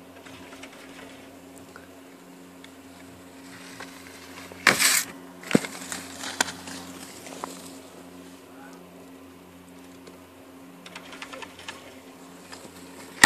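Skis scraping across snow, a short loud hiss about five seconds in as a young skier passes close, followed by a few lighter clicks, over a faint steady hum.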